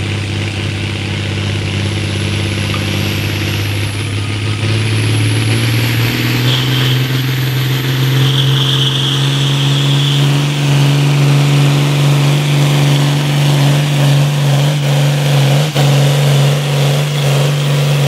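John Deere diesel farm tractor working under full load while pulling a weight-transfer sled. The engine's pitch climbs between about four and six seconds in, then holds steady at high revs, with a thin high whine above it.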